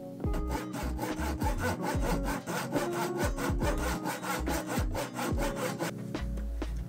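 Fast, regular rasping strokes on wood, about five a second, stopping about six seconds in, over background music.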